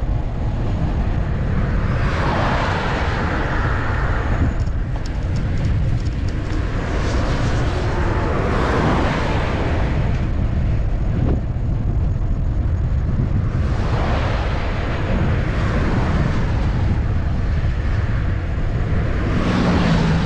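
Wind buffeting the microphone of a camera on a bicycle moving at speed, with motor vehicles passing on the highway every few seconds, each swelling and fading away.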